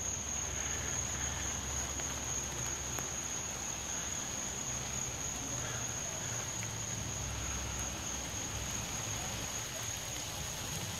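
A steady, unbroken high-pitched trill of night insects, over an even hiss of light rain.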